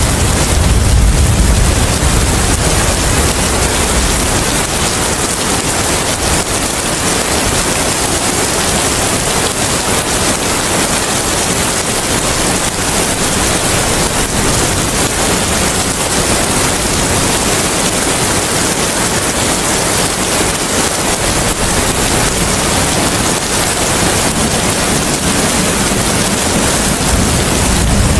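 Steady rain and wind: an even hiss throughout, with a deeper wind rumble in the first couple of seconds and again near the end.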